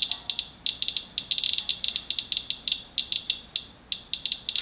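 Radalert Inspector Geiger counter chirping with each detected count: an irregular run of short, high beeps, several a second in uneven clusters. The rate reflects a reading of about 0.2 mR/hr, some twenty times background, from a radioactive rain-water sample.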